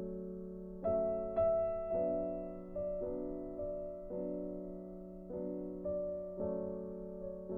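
Background music: slow, gentle piano notes, a new note or chord about every half second, each ringing and fading away.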